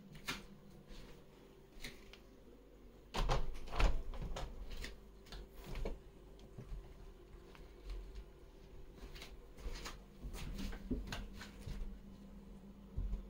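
Cats jumping onto and clambering at a wooden windowsill: a run of knocks, thumps and claw scrapes, heaviest about three to four seconds in and again near the end, over a faint steady hum.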